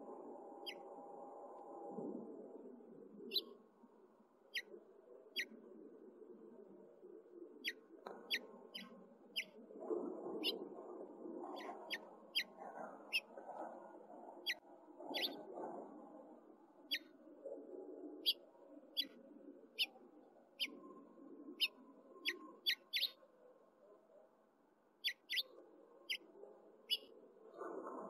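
House finch chirping: dozens of short, sharp chirps at irregular intervals over a low, steady background rumble.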